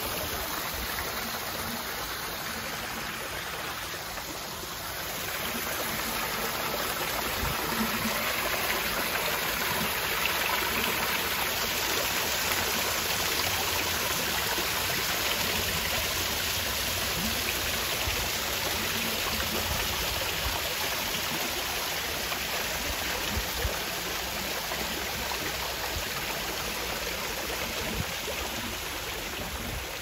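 Water running in a small rock-edged garden stream, a steady flowing trickle that grows a little louder about five seconds in.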